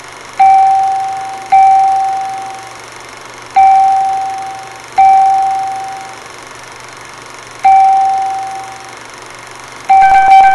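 Electronic ding, a single clear note struck six times at uneven intervals, each one sharp at the start and fading over about a second. Near the end a second, higher ding overlaps the last one.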